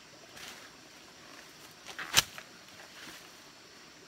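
A person moving through leafy undergrowth: a few soft rustles of leaves and brush, with one sharp crack about halfway through.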